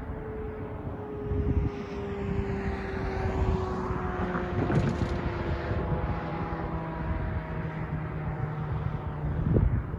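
A car drives over the railroad crossing, its noise swelling to a peak about halfway through. Under it runs a steady engine drone whose pitch slowly falls.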